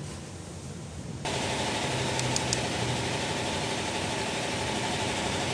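Vehicle engine idling steadily, cutting in suddenly about a second in.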